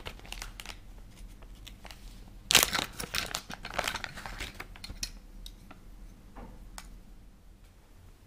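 Clear plastic bag crinkling and rustling as it is handled and the parts are pulled out of it. The loudest, densest crinkling comes about two and a half seconds in and lasts about two seconds, then thins to a few scattered clicks.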